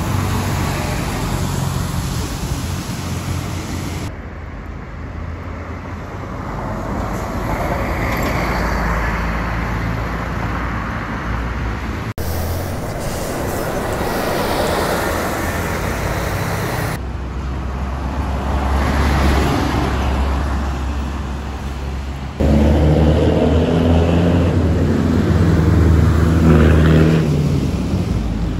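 Buses driving past on city streets in a run of abruptly cut clips: bus engines running, with tyre and traffic noise. The loudest is a coach's engine in the last six seconds.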